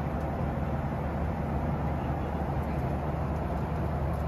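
Steady in-flight cabin noise of a Boeing 737 airliner: an even, low rush of airflow and engines.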